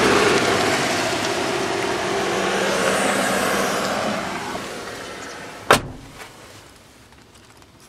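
A passing motor vehicle, loud at first and fading away over about five seconds, then a single sharp thump near six seconds in.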